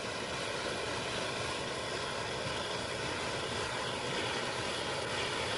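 A row of electric fuel injectors spraying petrol out of an intake manifold's four ports, the spray alight and burning with a steady, dense rushing noise.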